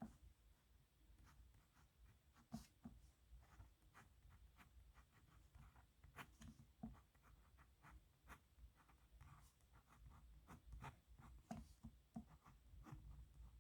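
Faint scratching of a nib pen on paper: short, irregular strokes and ticks as letters are written.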